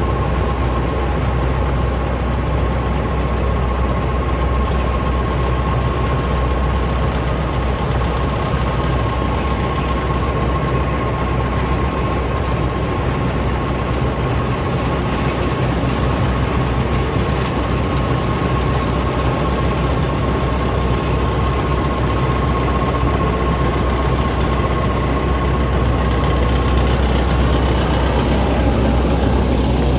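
Fortschritt E514 combine harvester running steadily while cutting: a heavy diesel drone with a steady high whine over it that stops near the end.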